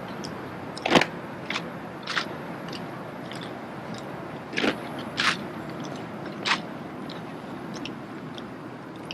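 Drill rifles being spun and caught, hands smacking against the rifles in about six sharp, irregular claps, the loudest about a second in and another about halfway through, over steady background noise.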